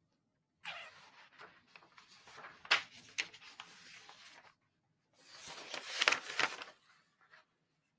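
Papers rustling and shuffling on a desk, in two spells of handling, each with a sharp snap or tap.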